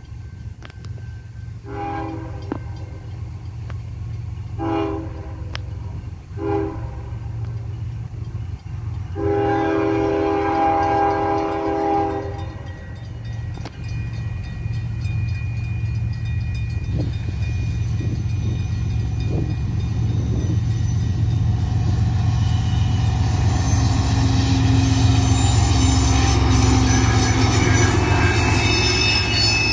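CSX ES44AC diesel locomotive sounding its horn in four blasts, the last held about three seconds, then its GEVO V12 engine's rumble growing louder as the train closes in and passes. Steel wheel-on-rail noise and a thin, steady squeal build up in the second half as the train takes the curve off the main line.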